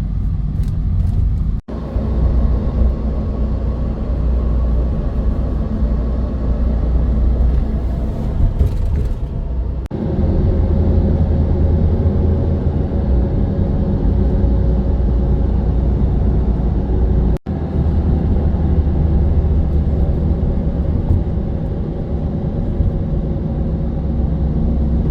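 Steady low engine and road rumble heard from inside a moving transfer vehicle, with a few abrupt breaks where the recording is cut.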